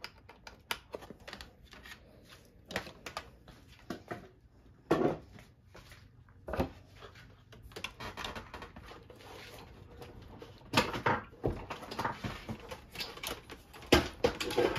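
Irregular clicks and knocks of cables and connectors being handled and pushed into place on an electronics bench, with a few heavier thumps.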